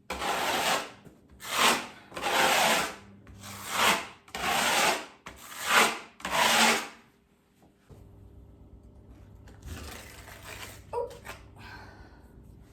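A plastering knife scraping mud across a textured wall in repeated rasping strokes, about seven in quick succession, then a pause and one more stroke.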